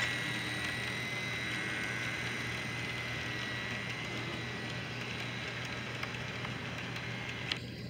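Model freight cars rolling past on three-rail model railroad track: a steady whirring rush of wheels on rail over a low hum. It cuts off abruptly with a click near the end.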